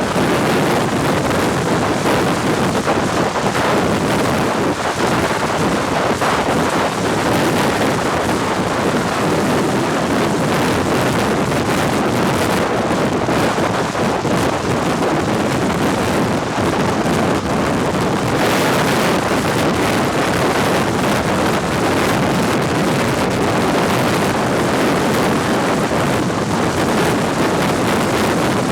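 Steady roar of dense interstate highway traffic, tyres and engines blending into one continuous noise, with some wind on the microphone. A vehicle passes a little closer about two-thirds of the way through.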